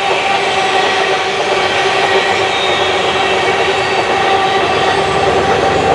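A long train of empty steel ore wagons rolling past close by: a loud, steady rumble and rattle of wheels on the rails, with several steady ringing tones over the noise.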